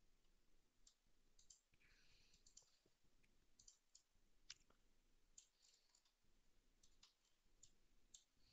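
Near silence with faint computer mouse clicks at irregular intervals.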